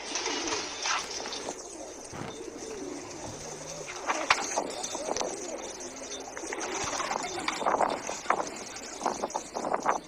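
Pigeons cooing, low and wavering, with scattered sharp clicks and knocks around them.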